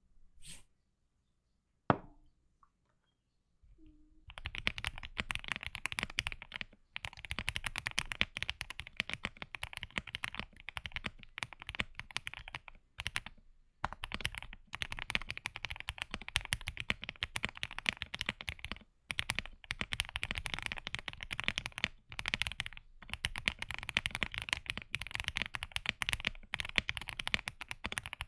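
Fast typing on a Qwertykey QK65 mechanical keyboard fitted with Moyu Green Snake switches and Stabies stabilizers: a dense, even stream of keystrokes with short pauses, starting about four seconds in after a single sharp click.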